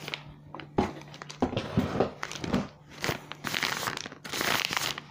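Plastic packaging of a diamond painting kit crinkling as it is handled, in irregular rustles that grow louder about three and a half seconds in.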